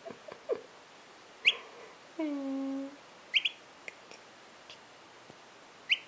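A three-day-old domestic turkey poult giving a few short, high peeps that rise in pitch, one at a time and once as a quick pair. About halfway through, a person gives a short low hum.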